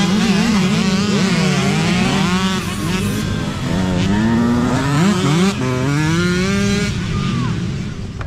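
Several small youth dirt bike engines revving at once, their pitches rising and falling over one another; past the middle one engine's pitch climbs steadily for over a second as it pulls away.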